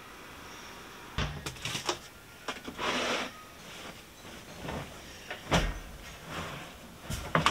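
A few scattered light knocks and clatter, with a short rustle about three seconds in.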